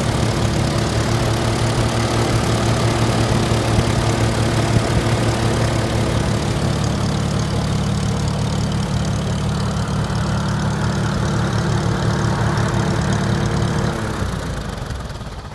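McCormick-Deering W-4 tractor's four-cylinder gasoline engine idling steadily. About a second and a half before the end it is shut off, and its note sinks as it runs down.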